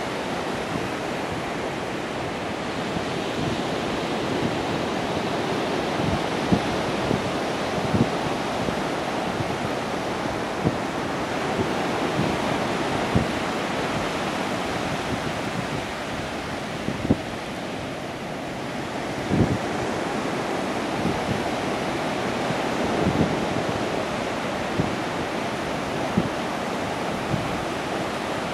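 Surf washing onto a sandy beach, a steady rush, with wind buffeting the microphone in short low thumps every few seconds.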